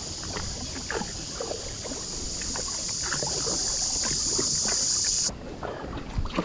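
Kayak paddle strokes dipping and dripping in calm creek water, under a loud, high, steady buzz that cuts off suddenly about five seconds in.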